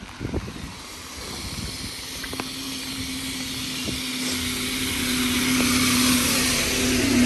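A motor vehicle approaching on a wet road: tyre hiss swelling steadily over several seconds, with a steady engine hum joining after about two seconds and a low rumble growing toward the end.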